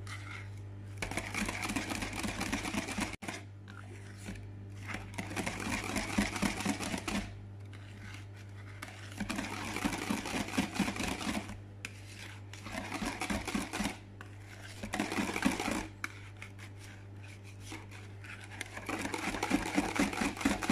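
Wire whisk beating milk powder and water in a plastic bowl: a fast rattling scrape of the wires against the bowl, in several stretches of a few seconds with short pauses between. A steady low hum runs underneath.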